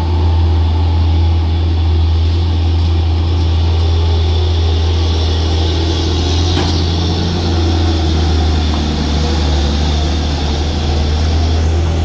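Diesel engine of a Hino concrete mixer truck labouring up a steep hairpin bend, a loud steady deep drone.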